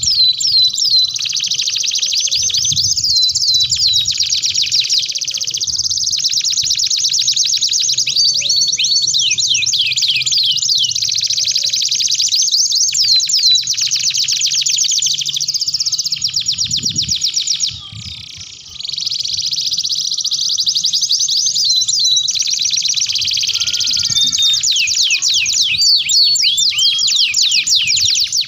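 Domestic canaries singing a long, continuous song of fast trills and rolling runs, with a brief break about two-thirds of the way through.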